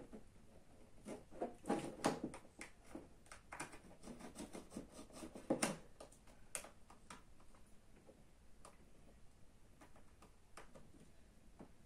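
Small clicks, ticks and scrapes of a tool working at an iPod Video's case as it is pried open, frequent at first and thinning to occasional ticks after about six seconds.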